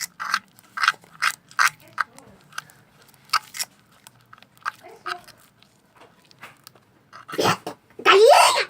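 Homemade slime being stirred and squished in a pot: short sticky squelching smacks, about three a second at first and then sparser, with a louder burst with a rising squeal near the end.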